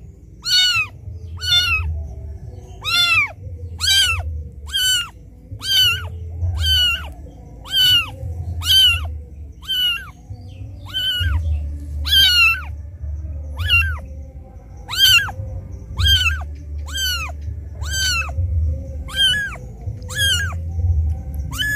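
Very young kitten crying for its mother: a steady string of loud, high meows about one a second, each rising then falling in pitch, the distress call of a kitten left alone by its mother.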